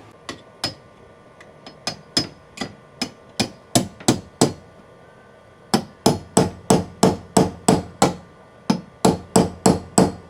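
Hammer tapping a roll pin home into a truck's exterior door handle: about two dozen sharp metallic strikes, about three a second, in three runs with short pauses between them. The strikes grow louder through the first run.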